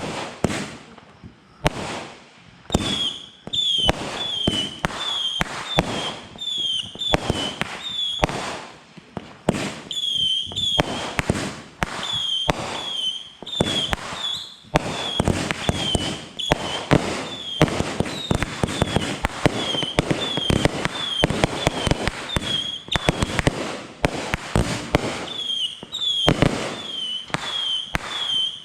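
Consumer fireworks going off in a long, dense barrage of bangs and crackles, with short high whistles chirping over it again and again from about three seconds in.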